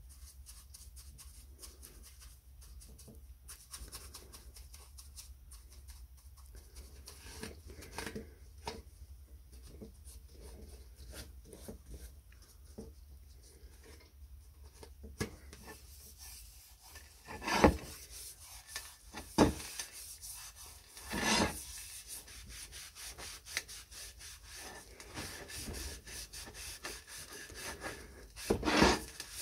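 Metal seed-planter part being scrubbed with a small hand wire brush and rubbed down with a rag: soft, quick rubbing strokes, with a few louder scrapes or knocks in the second half.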